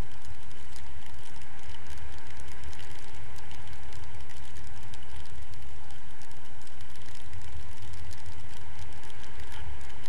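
Wind from tandem paraglider flight buffeting the action camera's microphone: a steady low rumble with crackling.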